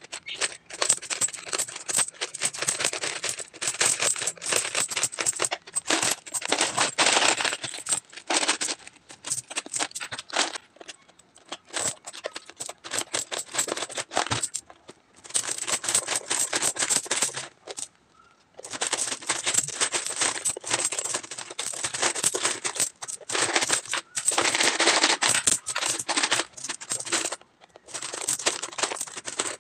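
Philippine peso coins clinking and jingling as they are handled on a pile and worked out of a plastic piggy bank, in long runs of dense clicks broken by a few short pauses.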